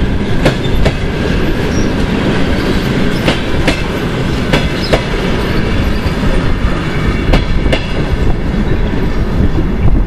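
Railway passenger coaches rolling past and away, their wheels clacking over rail joints in pairs every few seconds over a steady rumble.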